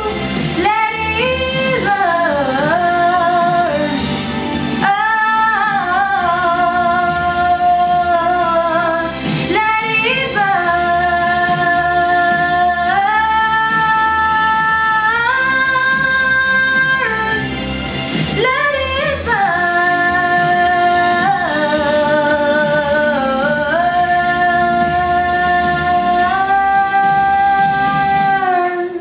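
A woman singing long held notes that glide from pitch to pitch, with music behind; the singing stops at the very end.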